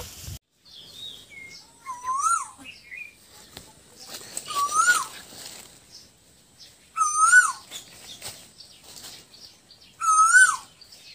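A bird calling: a single whistled note that rises and then falls, repeated four times about every two and a half to three seconds.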